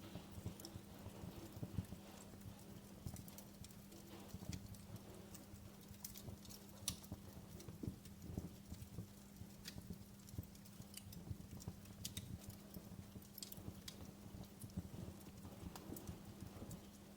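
Wood fire in a fireplace crackling, with irregular sharp pops and snaps over a low steady hum.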